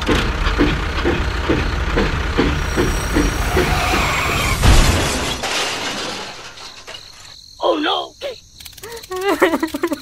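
Loud rattling, clattering noise with a regular knock about three times a second, ending in a heavy thump about five seconds in. Near the end comes squeaky, high-pitched cartoon-style voice chatter with gliding pitch.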